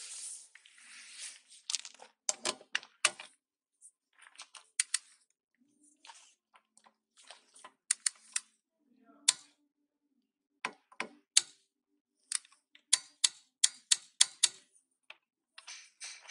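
Yato YT-0761 half-inch adjustable torque wrench clicking on a wheel's bolts, set to 100 Nm: a short scraping rustle, then groups of sharp metallic clicks from the ratchet head and the torque break-over.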